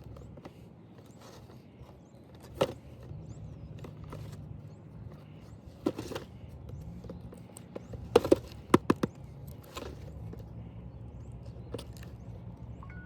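Scattered sharp clicks and knocks of a toy backhoe loader and its packaging being handled, with a quick cluster of four about two-thirds of the way through, over a steady low hum.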